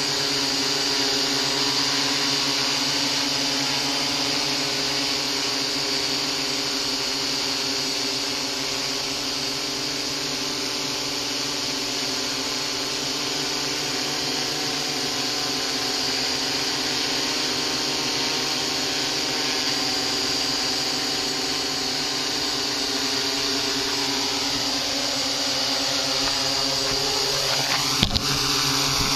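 XAircraft X650 quadcopter's electric motors and propellers running steadily as it holds a hover, a buzzing hum with several steady tones. Near the end the pitch shifts as it climbs, and there is a brief knock.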